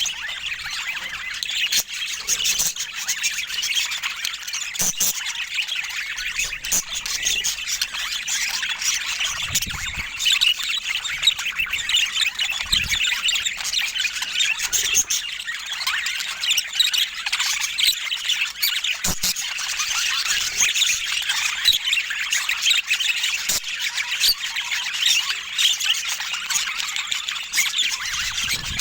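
Budgies chattering and chirping without pause: dense, high-pitched warbling with short sharp squawks and clicks scattered through it.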